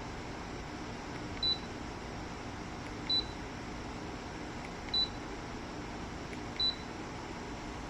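Dreo tower fan's control beeps: four short, high beeps, one every one and a half to two seconds, as its settings are changed, over steady background noise.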